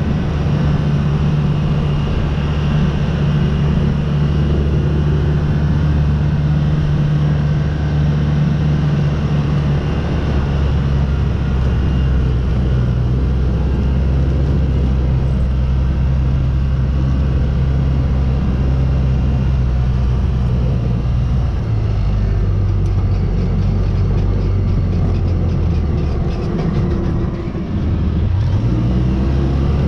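Engine running steadily while under way, its pitch stepping down about a third of the way in and again past the middle, with a brief dip near the end.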